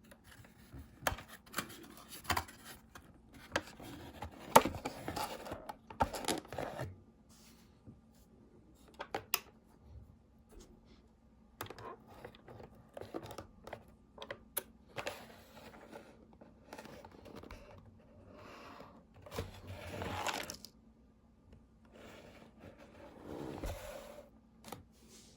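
Hands unboxing a scale model car: packaging being torn, scraped and crinkled, with scattered clicks and short rustles.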